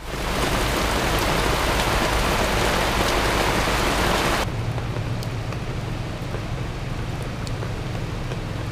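Heavy rain falling on a tent canopy overhead, a loud steady hiss. About halfway through it cuts abruptly to a quieter rain hiss over a wet street, with a low hum underneath.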